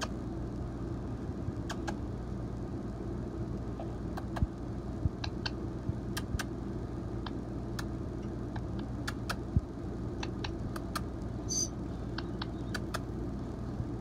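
Black-headed caique making scattered sharp little clicks with its beak, about twenty in all, and one brief high squeak a little before the end, over a steady low hum.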